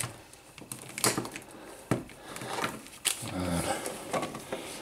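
Plastic action figures being handled and set down on a tabletop: a few light clacks and knocks, about one a second, over soft rustling.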